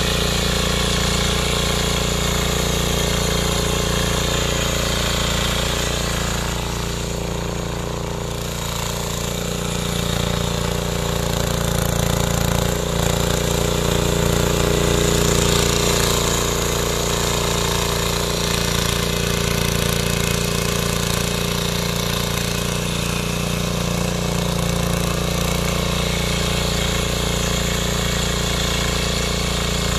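A 7 hp mini power tiller's small single-cylinder engine running steadily under load as its rotary tines churn through soil. The engine eases a little about a quarter of the way through, then picks up again.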